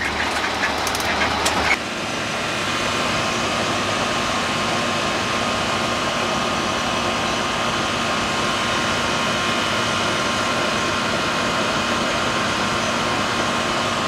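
Goodman air-conditioning condenser unit running: a steady whir of its fan with a faint hum. About two seconds in, this takes over sharply from a short stretch of truck engine and road noise.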